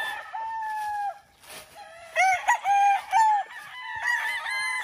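Kelso gamecocks crowing, several calls overlapping and following one another, with a louder run of crows about two seconds in.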